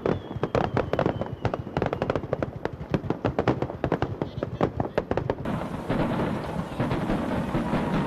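Fireworks going off: a rapid, dense run of crackling bangs, with a faint falling whistle early on. About five and a half seconds in the sound switches abruptly to a denser, smoother rumble of continuous explosions from another recording.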